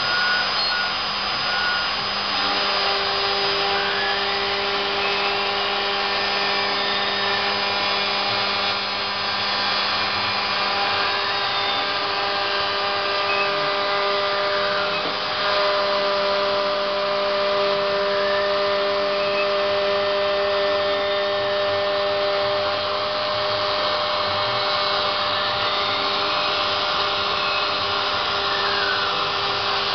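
Hobby CNC router machining PVC: the spindle motor runs steadily with a whine of several held tones, while the axis stepper motors sweep up and down in pitch every few seconds as the axes speed up and slow down.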